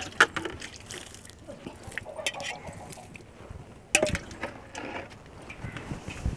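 Water splashing and dripping as a hand scoops from a basin and sprinkles it over freshly sown pots of soil. Scattered small clinks run through it, with a sharp knock about four seconds in.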